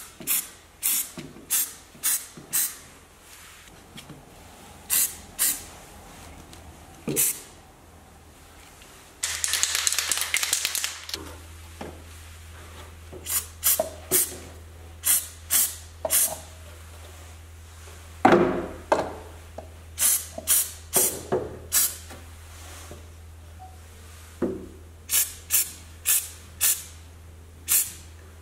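Aerosol can spraying rust-protection coating in many short hissing bursts, with one longer burst of about two seconds around ten seconds in. A louder knock comes about eighteen seconds in.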